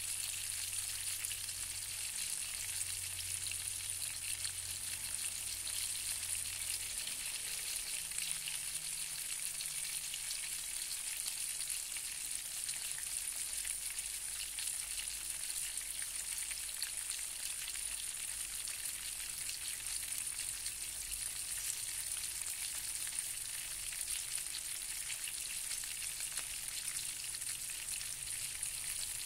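A thick piece of cá kẽm fish sizzling steadily in hot oil in a non-stick frying pan, with a constant fine crackle of spitting fat.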